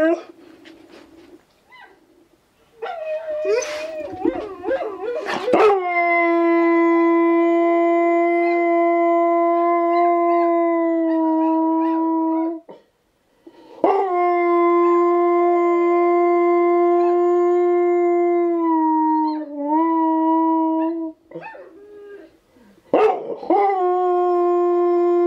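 Husky–German Shepherd mix howling: a few seconds of broken, shifting cries, then long, steady held howls. The first howl cuts off abruptly after about six seconds, the second wavers near its end, and a third starts near the end.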